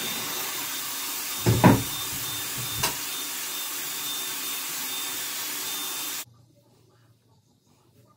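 Hot-air hair styler of the Airwrap curling-wand type blowing with a steady whoosh and a thin high whine while a curl is wrapped round its barrel. There are a few low knocks in the first three seconds, and the sound stops abruptly about six seconds in.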